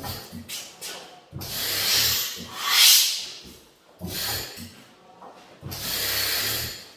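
A 15 hp Fairbanks Morse Model N horizontal single-cylinder engine being rolled over by hand on its flywheels. There are four breathy whooshes as it turns, the loudest about three seconds in.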